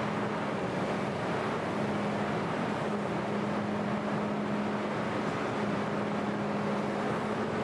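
Large farm tractor's engine running steadily with a constant low drone as the tractor reverses slowly.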